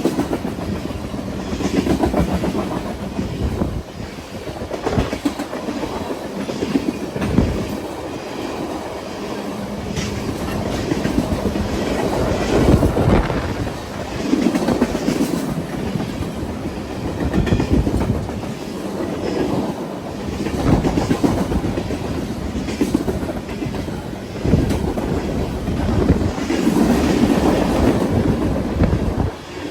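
BNSF freight train rolling past, its freight cars' wheels clattering over the rail joints in a clickety-clack that swells and fades every few seconds as the cars go by.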